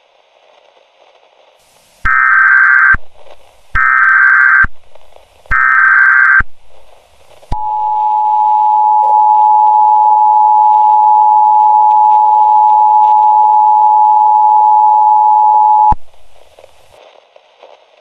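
Emergency Alert System tones: three short, shrill SAME digital header bursts a little under a second apart, then the EAS two-tone attention signal (853 and 960 Hz together) held steady for about eight seconds before cutting off abruptly.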